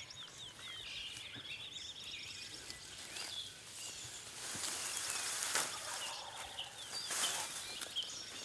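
Small birds chirping in a dawn chorus, with footsteps swishing through tall grass that grow louder about halfway through.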